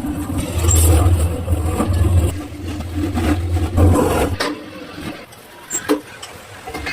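A motor running with a low steady hum that stops about four and a half seconds in, with scattered knocks over it.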